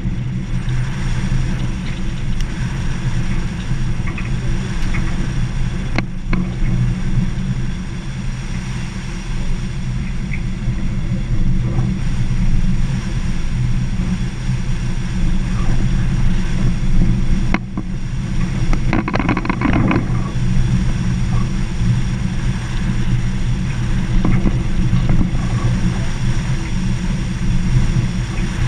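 Vehicle engine running steadily while driving on a gravel dirt road, with tyre and road noise. A few sharp knocks come through, once about six seconds in and again past the middle.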